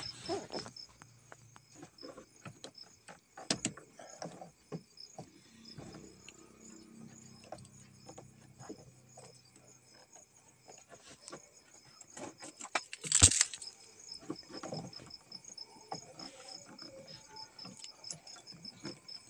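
Plastic wiring connectors under the steering column of a Mahindra Bolero pickup being handled and unplugged: scattered small clicks, knocks and rattles, with one sharp loud knock about thirteen seconds in. A faint high pulsing chirp continues in the background.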